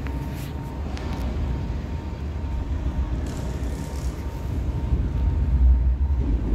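Low rumble of a Cercanías commuter train approaching the platform, growing louder near the end.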